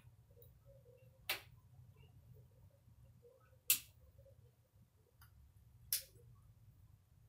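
Three short, sharp clicks, roughly two and a half seconds apart, the middle one loudest, over a faint low hum.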